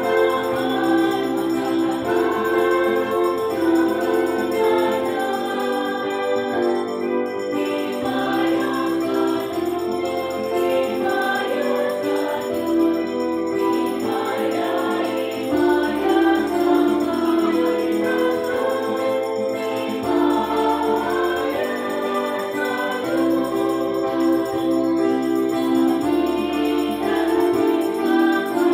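Choir singing a church hymn over sustained keyboard accompaniment, with bass notes changing every few seconds.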